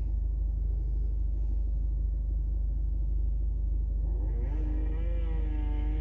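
Motorcycle engine heard through a window: a low rumble at first, then about four seconds in the engine note rises as it is revved and holds a steady, slightly wavering pitch.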